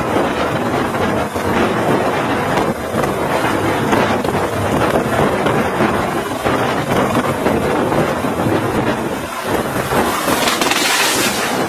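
Light helicopter's rotor and turbine running close by as it hovers low, with rotor downwash buffeting the microphone. About ten seconds in, a harsh hissing burst as the helicopter tips over onto the helipad.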